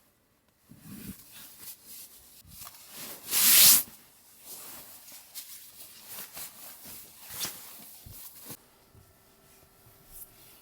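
Rubbing and rustling of things being handled at close range, with one loud rasping sweep about three and a half seconds in; near the end it drops to a faint steady hum.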